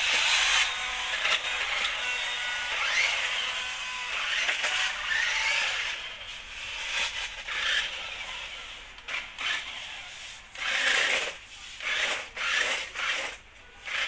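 Remote-control stunt car's small electric drive motors whirring, with the pitch rising and falling, as it drives over a tiled floor. It runs continuously for the first several seconds, then in short spurts with brief pauses.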